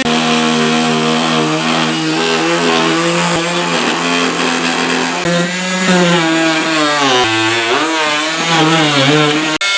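Electric power saw cutting wood, its pitch dropping and recovering as the blade bogs under load. The sound breaks off abruptly a few times.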